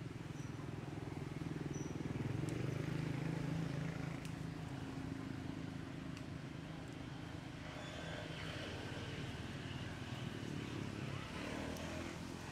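Low, steady drone of a motor vehicle engine, swelling a couple of seconds in and then carrying on more evenly.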